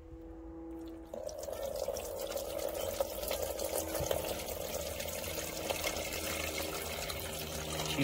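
Copper chloride acid pouring steadily from a plastic bucket into an old t-shirt used as a filter. It starts about a second in. The cloth catches the gold foils left after the pins dissolve.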